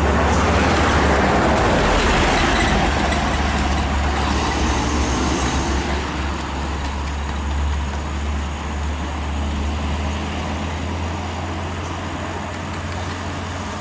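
Road traffic: vehicle engines and tyre noise, louder over the first few seconds as a car drives past, then easing to a steady low engine drone.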